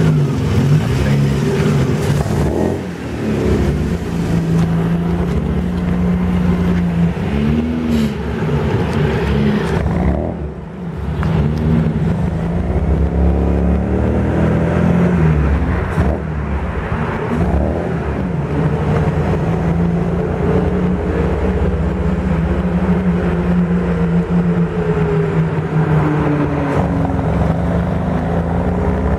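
Bugatti Type 35 engine driving under way, heard from the open cockpit, its note rising and falling through the gears as it accelerates, with a brief lull about ten seconds in.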